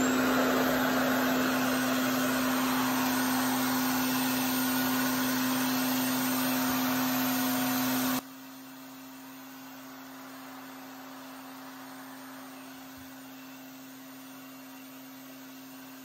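RevAir reverse-air dryer running: its suction motor gives a steady hum under a rush of air drawn through the hose and wand. About 8 seconds in the sound drops suddenly to a much quieter steady hum.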